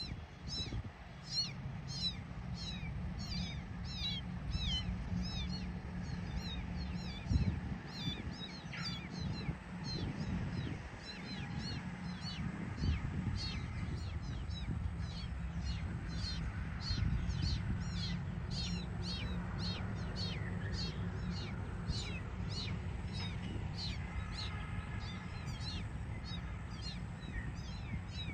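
A young kitten mewing over and over in short, high-pitched, falling cries, about two a second, over a low rumbling noise.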